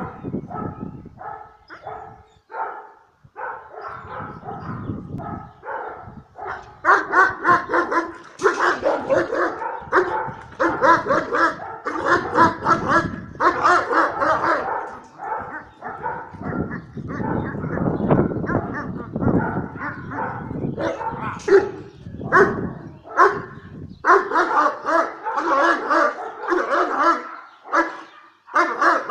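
Kangal shepherd dog barking over and over, stirred up by a decoy in protection training; the barks come in short spaced calls at first, then turn rapid and louder about seven seconds in.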